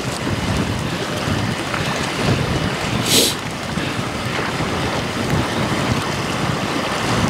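Gusty wind buffeting the microphone, a steady low rumble of noise, with a short hiss about three seconds in.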